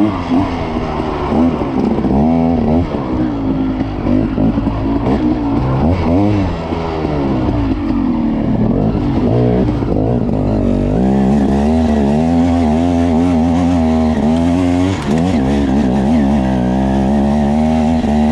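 Dirt bike engine ridden on a wooded trail, the throttle opening and closing so the engine note rises and falls constantly. From about eleven seconds in it holds a steadier note with small wavers.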